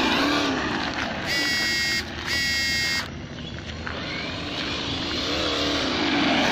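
Losi Baja Rey electric RC truck driving on pavement, its ESS One Plus sound module playing a simulated engine whose revs rise and fall. Two steady high-pitched tones, each under a second long, sound back to back between about one and three seconds in.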